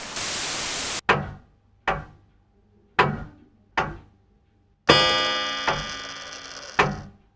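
A short burst of hiss-like static, then a series of sharp percussive knocks, each ringing out, with a louder sustained ringing chord struck about five seconds in and fading away.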